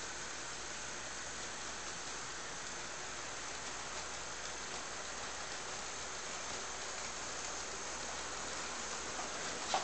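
Model freight cars rolling along the track: a steady rolling hiss of many small wheels on rail, with a sharp click near the end.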